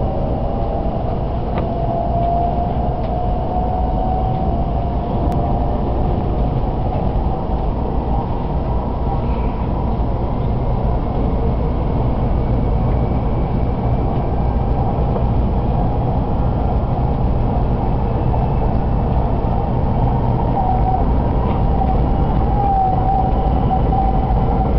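Series 800 Shinkansen heard from inside the passenger cabin, accelerating after departure: a steady low rumble and running noise, with an electric whine from the train's motors rising in pitch over the first ten seconds or so, the whole growing slightly louder.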